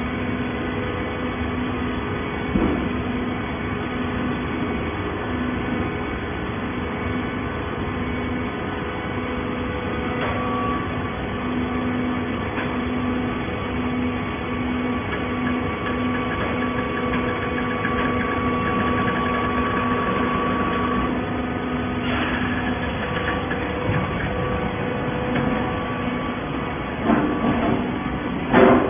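Automatic-fed plastic bottle baler running: a steady machine hum with a few clunks, one early and several near the end.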